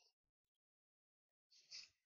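Near silence, broken near the end by a brief soft rustle of paper being handled.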